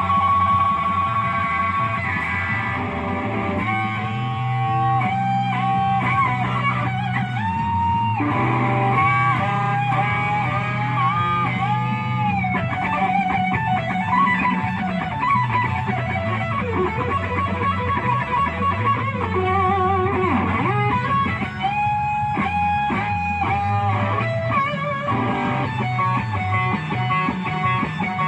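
Electric guitar playing a slow blues lead, with held single notes and string bends over a steady bass line.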